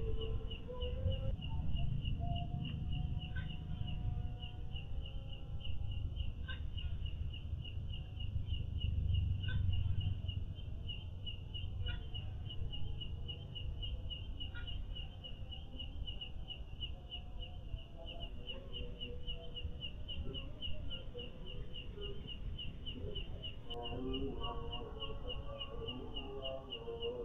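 Steady, even chirping of a night insect, about three chirps a second, over a low rumble. Faint wavering calls come in near the end.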